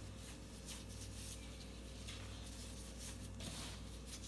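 Hands rubbing and kneading a crumbly sfouf dough of toasted flour, ground almonds and sesame, a soft, faint scraping rustle, over a steady low hum.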